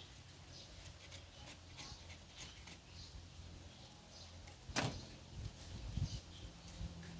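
A small knife scraping and cutting at a sprouted coconut's fibrous husk in faint, short scratches. A sharp knock comes a little under five seconds in as the knife is set down on the bamboo board, followed by a few dull thumps as the coconut is turned in the hands.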